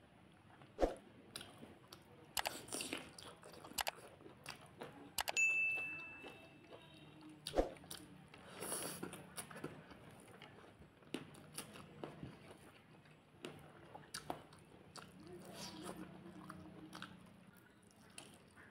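Close-up eating sounds of a person eating rice and chicken curry with the hand: wet smacks and clicks as the rice is mixed and the mouth chews. About five seconds in there is a short ringing clink, the loudest moment.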